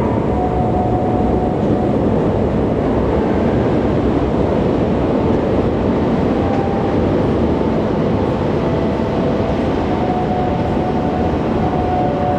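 Steady rumbling train noise, even and unbroken, with faint thin whining tones drifting in and out.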